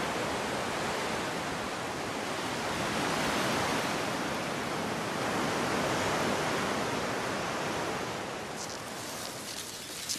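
Sea surf washing in the shallows, a steady rushing that drops away about eight seconds in, when a few light ticks come in.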